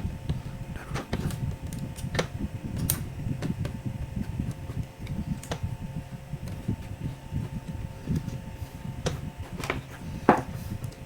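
Scattered light clicks and taps of a laptop's plastic casing and small parts being handled and fitted together, with a sharper clack about ten seconds in, over a faint steady hum.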